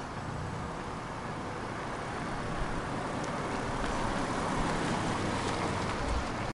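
Mazda3 hatchback driving slowly past: steady engine and tyre noise that grows louder as the car comes close.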